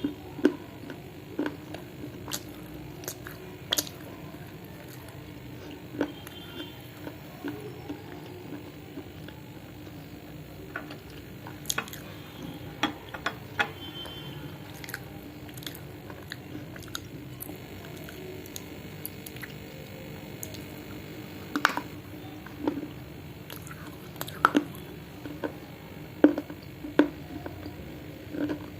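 Close-up biting and chewing of dry edible clay and baked clay pot pieces: irregular sharp crunches, coming more often in the last third.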